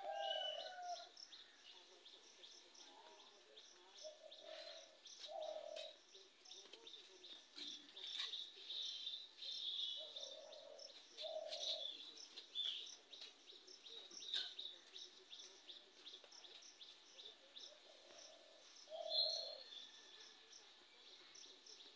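Birds calling: a low two-note call, repeated four times, over high chirps and twitters from small birds.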